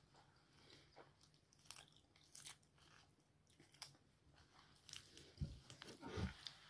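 Faint mouth sounds of a person chewing and biting a mouthful of machboos laham (spiced rice and mutton), with soft short crunches and clicks. Two louder dull thumps come near the end.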